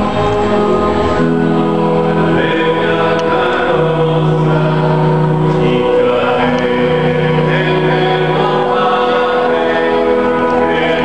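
A choir singing a religious hymn in long held notes that change every second or two.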